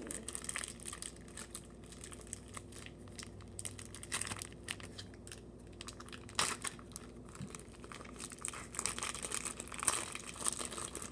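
Plastic zip-top bags crinkling and rustling as they are handled, in irregular crackling bursts that come more thickly about four seconds in, at six and a half seconds, and again near the end.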